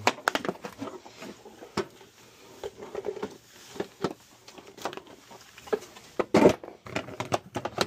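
Irregular plastic clicks and knocks from handling a red Milwaukee cordless vacuum and fitting its pleated filter into the housing; the vacuum motor is not running.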